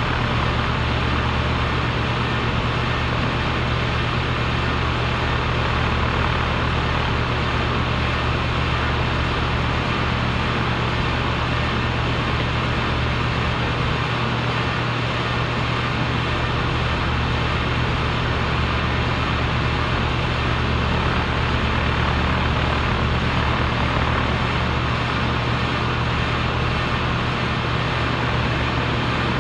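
Compressor running steadily: a constant deep motor hum under an even mechanical hiss, with no change in speed or load.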